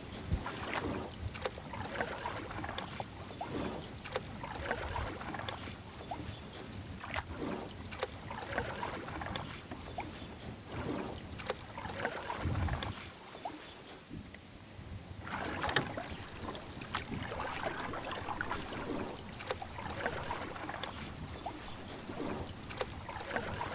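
Kayak paddle strokes splashing in the water, about one a second, with a short pause about halfway through and a single sharp knock just after it.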